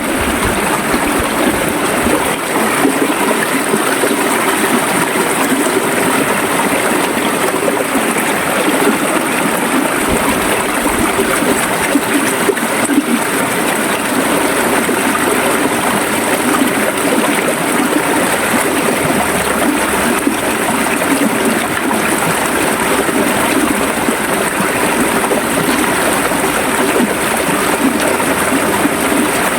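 River water running steadily, a continuous even rush.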